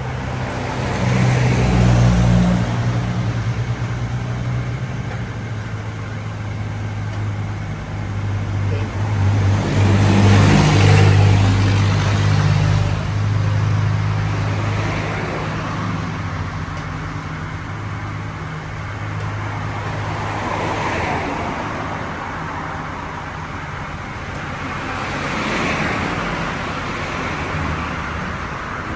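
Road traffic: vehicles passing one after another, each swelling and fading, over a steady low engine hum.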